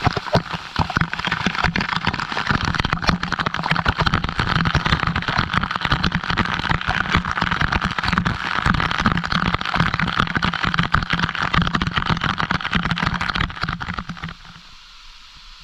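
Waterfall water pouring and splashing close by, a dense crackling rush that drops away sharply about fourteen seconds in.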